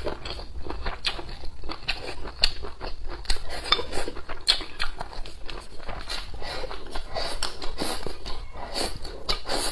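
Close-miked eating: steady chewing and mouth sounds as rice and stir-fried cured pork are eaten, with frequent short clicks of wooden chopsticks against a ceramic bowl. Near the end, chopsticks scrape rice from the tipped bowl into the mouth.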